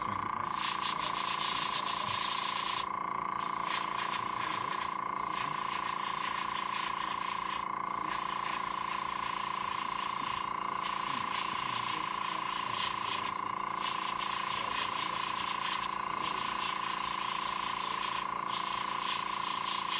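Dual-action airbrush hissing as it sprays a light mist of weathering paint in short passes, the hiss stopping for a moment every two to three seconds as the trigger is let off. A steady hum runs underneath.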